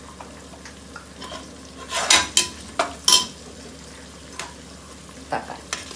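Onions and green chillies frying gently in oil in an aluminium pressure cooker, a steady sizzle, as a metal spatula stirs and scrapes them. It clatters sharply against the pot a few times around two to three seconds in and once more near the end.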